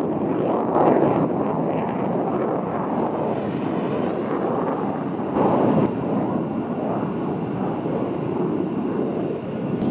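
Fighter jet engine running with a steady, even roar, swelling briefly louder twice.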